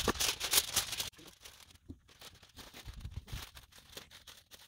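Aluminium foil crinkling and tearing as a sheet is pulled from the box and ripped off, loud for about the first second, then quieter rustles and light taps.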